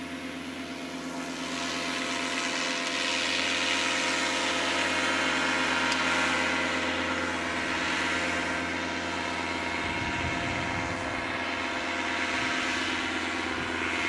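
Paramotor's two-stroke engine and propeller droning steadily in flight, growing louder over the first few seconds as it comes closer, then holding level.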